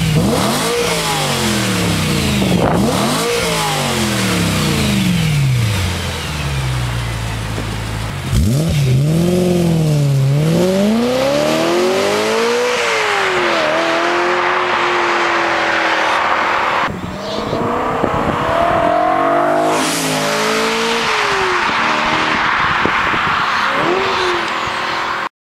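BMW E92 M3's V8 running through a Remus Street Race catback exhaust, its revs rising and falling repeatedly. The sound changes abruptly about two-thirds of the way through.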